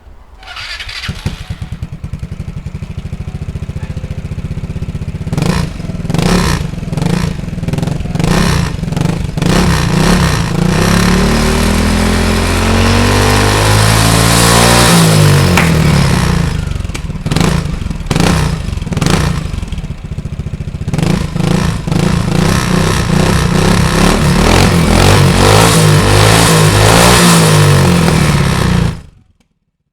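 Single-cylinder four-stroke scooter engine fitted with a GPR aftermarket exhaust, starting about a second in and idling, then revved in short blips, held in a long rising rev, blipped again and held at high revs until it is switched off near the end.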